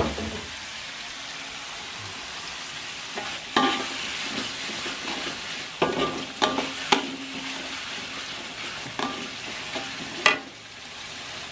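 Chili sauce sizzling steadily in oil in a metal wok, with a spatula stirring and scraping and clanking against the pan several times, the loudest knock near the end.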